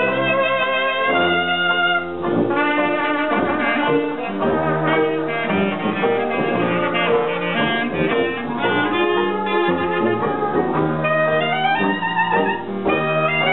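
Hot jazz band playing, with several horns sounding melodic lines together at once.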